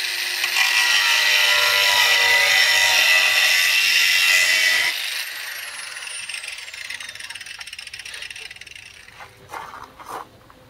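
Handheld angle grinder running against the work with a high, steady whine for about five seconds, then switched off, its pitch falling as the disc spins down. Two small knocks follow near the end.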